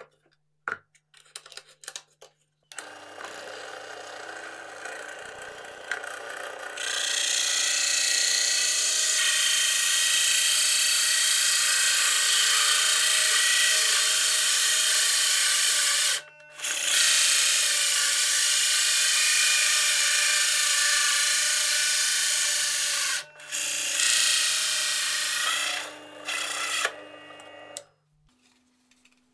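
Benchtop drill press driving a large hole saw into thick plywood. The motor hums steadily for a few seconds, then the saw bites in and a loud rasping cut runs on, breaking off briefly twice before stopping near the end.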